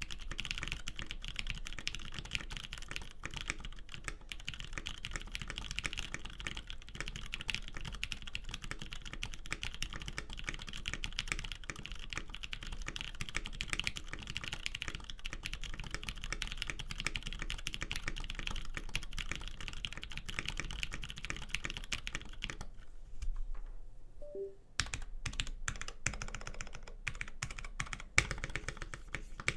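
Custom mechanical keyboard with polycarbonate case and plate, lubed Mod M tactile switches and GMK keycaps, typed on fast and continuously. The typing stops for about two seconds about three-quarters of the way in, then resumes with more spaced keystrokes and one louder strike near the end.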